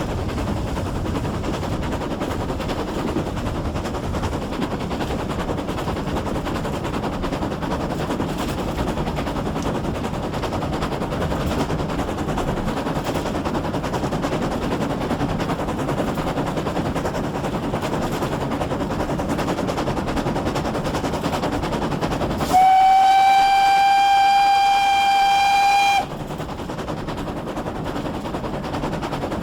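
GWR Pannier Tank no. 6412, a steam locomotive, running with a steady rumble and rapid clatter. About three quarters of the way through, its whistle sounds one steady note for about three and a half seconds, then stops sharply.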